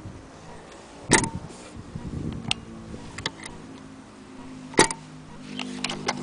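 Sharp clicks and knocks from handling a Singer 201K sewing machine and the fabric set under its presser foot: two loud clicks, one about a second in and one near five seconds, with lighter ticks between, over a faint steady hum.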